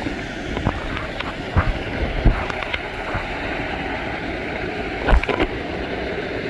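Steady rush of falling water from a waterfall, with a few sharp knocks; the loudest come about two seconds and five seconds in.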